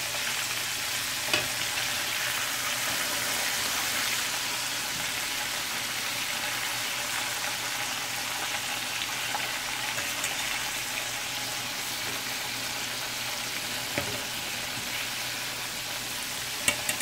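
Flour-coated chicken pieces deep-frying in hot oil: a steady sizzle. A few sharp clicks of the metal fork against the pot come about a second in and again near the end, as the pieces are turned.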